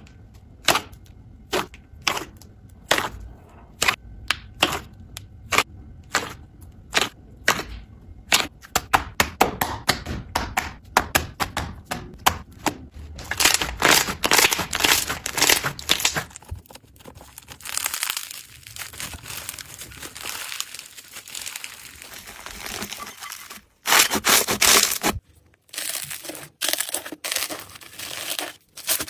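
Slime being squeezed and poked by hand, making sharp clicking pops about twice a second, then a denser run of crackling and crunching.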